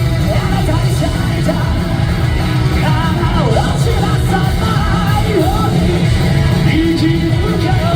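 Loud live rock music through a concert PA: the band plays at full volume, with heavy drums and bass under a singing, yelling voice and sliding melodic lines.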